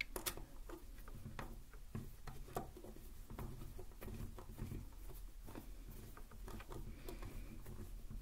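Irregular soft taps, clicks and scratching very close to a binaural microphone, the sound of hands handling small objects.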